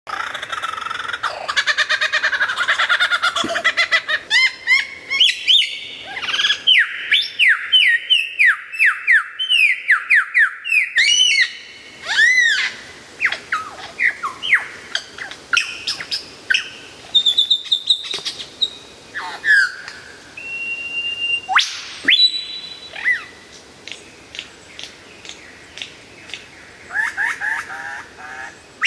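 Lyrebird singing a loud, varied song: dense warbling trills at first, then a run of repeated downward-sweeping whistles about two a second, then scattered whistles and calls, including a couple of held notes.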